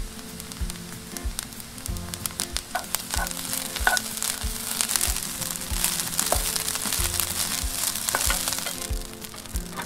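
Fried rice with Chinese sausage sizzling in a frying pan as it is stirred and turned with a spatula, the spatula clicking and scraping against the pan many times over a steady sizzle.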